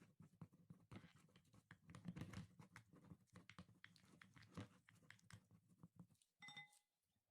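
Near silence: faint room tone with scattered soft clicks, and a brief high tone about six and a half seconds in.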